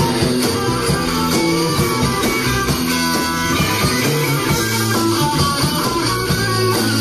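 Live rock band playing an instrumental passage with electric guitar to the fore, backed by bass and drums, with no singing.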